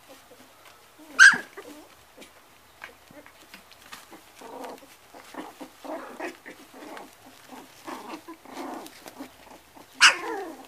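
White Hungarian puli puppies play-fighting: a sharp, high yelp about a second in and another near the end, each falling in pitch, with a run of short low growls and grunts in between.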